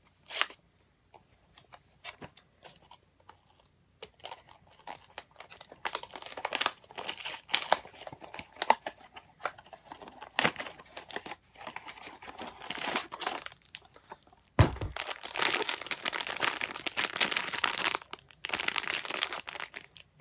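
Blind-box toy packaging being opened by hand: a few light clicks, then packaging crinkling and tearing for most of the time, with one dull thump a little past the middle.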